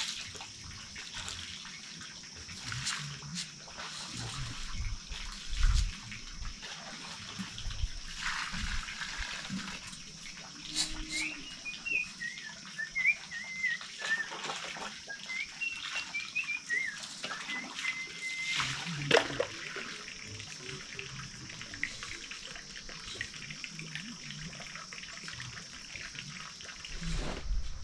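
Garden ambience: a steady high-pitched hiss throughout, a bird chirping repeatedly through the middle, and scattered knocks and rustles from hand work with soil and plants.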